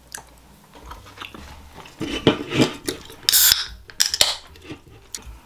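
Chewing of grilled beef, then a tall aluminium beer can cracked open by its pull tab: sharp cracks and two short hisses of escaping gas a little past the middle.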